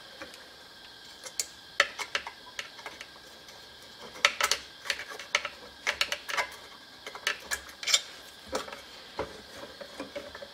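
Screwdriver working at a hard-to-reach screw under a homemade Stirling engine's diaphragm: irregular small metal clicks and taps as the tip catches and slips on the screw and the metal parts around it.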